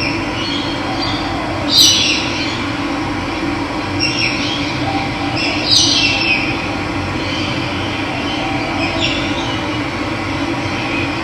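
Steady rush of running water, with birds calling over it several times in short falling chirps, the loudest about two and six seconds in.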